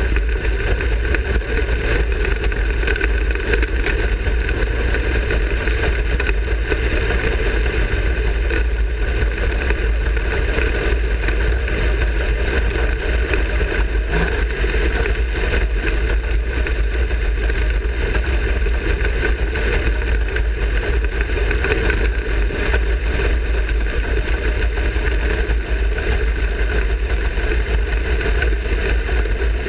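A 360 sprint car's V8 engine running hard under racing load, heard loud and steady from an in-car camera in the open cockpit.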